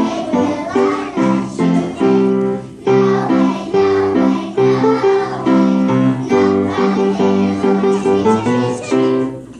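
A group of young children singing a song with instrumental accompaniment. The music stops just before the end.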